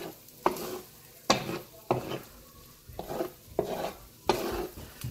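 A cooking utensil scraping and stirring scrambled eggs around a frying pan greased with bacon fat, in repeated short strokes a little more than one a second, the eggs frying between strokes.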